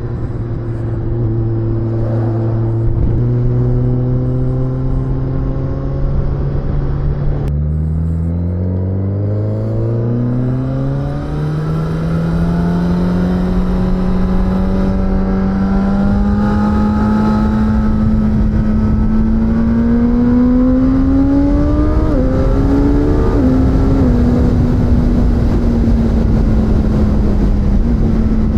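Suzuki GSX-S1000's inline-four engine under way. It runs at a steady pitch, steps up slightly about three seconds in, and its revs fall sharply about seven seconds in. The revs then climb steadily for about a dozen seconds, dip briefly twice, and settle to a steady note.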